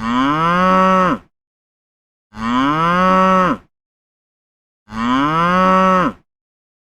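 Cow mooing: the same moo three times, each a little over a second long, its pitch holding steady and then dropping at the end, with silence between the calls.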